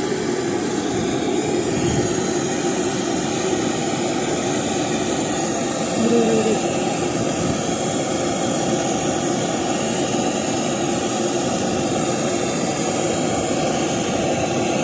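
Brazing torch flame roaring steadily as it heats the old suction-line service valve of an air conditioner to unsweat it from the copper pipe, with a brief squeak about six seconds in.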